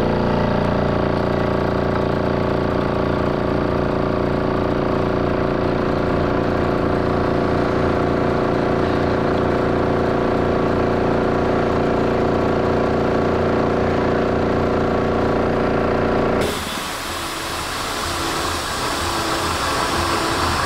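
Electric stud drive tool running a reactor vessel head stud back into its threads: the drive motor and gearbox give a steady hum of several held tones. About sixteen seconds in the sound changes abruptly to a rougher hiss with a faint tone repeating about once a second.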